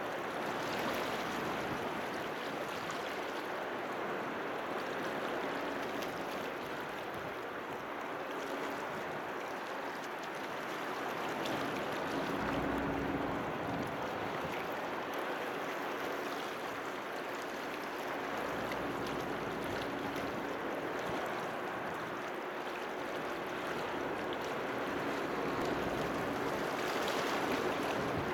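Harbour water lapping and splashing steadily against the breakwater, with a faint low hum from the approaching car ferry's engines that grows clearest about halfway through.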